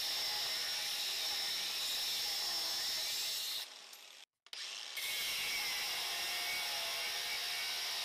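Small cordless cut-off tool with an abrasive wheel grinding a notch into a steel bolt clamped in a vise: a steady high-pitched whine of wheel on metal. It breaks off for about a second in the middle, then resumes.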